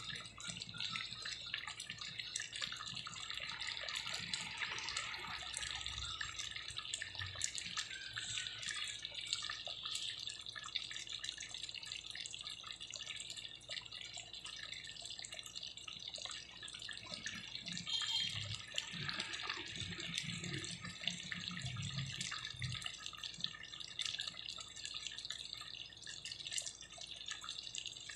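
Thick chicken afritada stew simmering in a pot, with a steady crackle of small bubbles popping at the surface.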